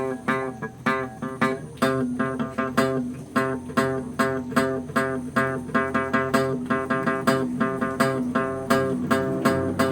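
Guitar playing, rhythmic plucked notes and strums.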